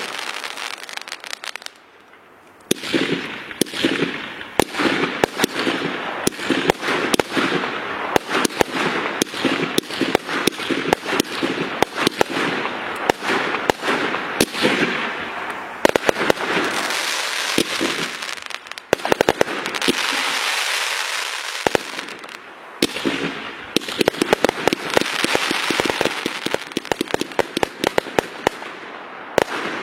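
Rapid, dense crackling and popping with many sharp bangs, almost without a break, dropping away briefly about two seconds in.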